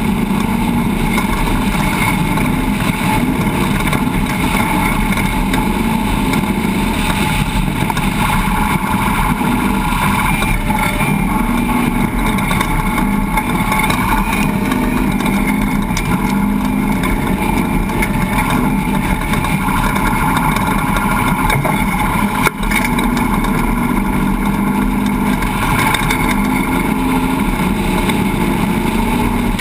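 An engine running steadily at an even speed, with one short click about three-quarters of the way through.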